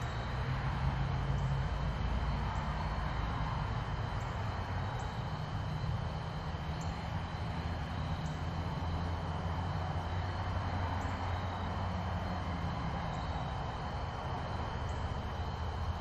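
Steady low drone of a distant engine, with a faint steady high-pitched whine above it.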